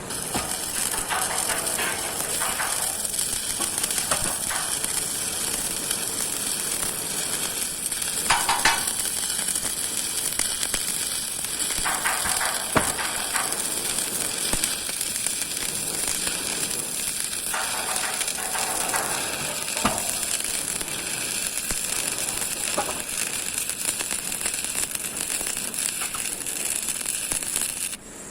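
Electric arc welding on a steel column base plate: a steady crackling sizzle from the arc, with a few sharp pops, that runs unbroken and cuts off abruptly at the end as the arc is broken.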